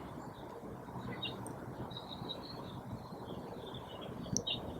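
Small birds chirping in the background, a run of short high notes, over a low steady background noise, with one brief click near the end.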